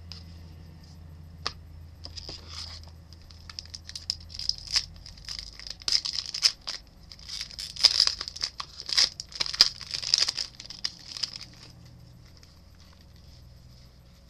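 Foil wrapper of a Topps UFC trading card pack being torn open and crinkled in the hands: a run of crackling rustles, busiest in the middle, that then stops.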